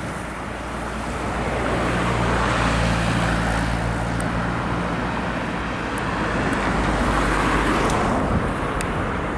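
Street traffic passing close by: a steady hiss of tyres and engines. A vehicle engine's low hum stands out from about two to six seconds in.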